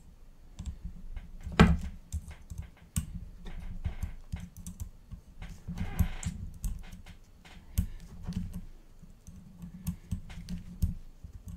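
Hands handling a carbon-fibre racing quadcopter frame and its small parts: irregular light clicks and knocks, with a louder knock about one and a half seconds in and a short rustle around the middle.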